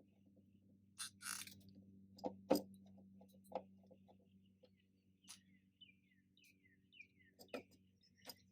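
Faint handling sounds of a door being reassembled: a short rustle about a second in, then scattered clicks and knocks, over a steady low hum. A few short falling chirps sound near the end.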